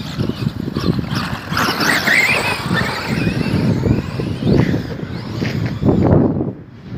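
Electric RC monster trucks driving over grass: an electric motor whine rises and wavers about a second and a half in, over a rough rumble of tyres on turf. The sound falls away sharply near the end.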